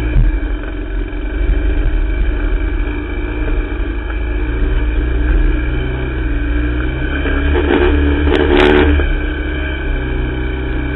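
ATV engine running steadily under way on a muddy trail, its low hum heard close up through the machine. A louder, noisier stretch about seven and a half to nine seconds in.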